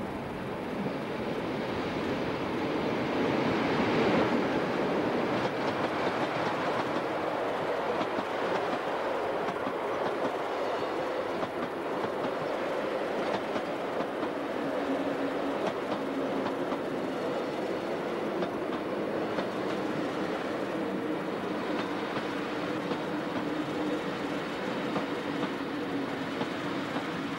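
Rhaetian Railway passenger train passing: rolling noise swells as the electric locomotive goes by about four seconds in, then the coaches run past with steady wheel-on-rail noise and clicking over the rail joints. A steady hum from the wheels rises over the rolling noise in the second half.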